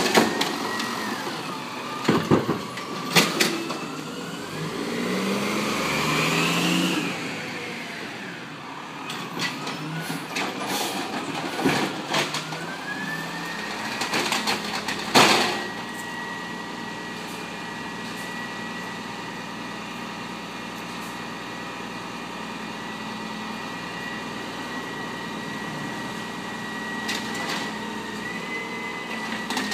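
Automated side-loader garbage truck dumping a recycling cart. Its engine revs up and down with a whine that rises and falls in pitch as the hydraulic arm lifts and empties the cart, and the cart bangs loudly against the truck several times in the first few seconds. Later the truck idles steadily under a constant high whine, with one more loud bang about fifteen seconds in.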